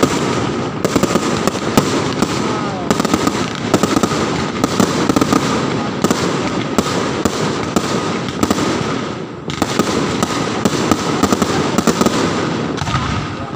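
Fireworks and firecrackers going off all around without pause, a dense crackle of many overlapping pops and bangs.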